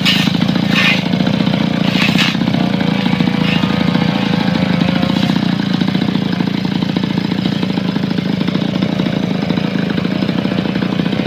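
Two-stroke brush cutter engine running steadily, with a few short hissing bursts in the first two seconds.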